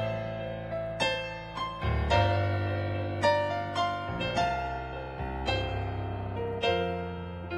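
Solo electric keyboard playing slow piano-voiced chords over held bass notes, a new chord struck about once a second.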